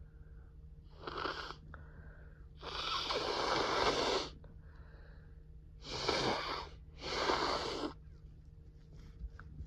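A person with a cold making four breathy, wheezy respiratory sounds: a short one about a second in, a long one of about a second and a half, then two more close together.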